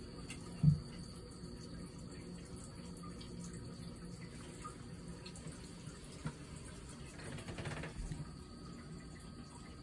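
Faint trickle of water running from the hand-wash spout on top of a toilet tank into its basin while a cat drinks from it, with small clicks throughout. A single dull thump comes about a second in.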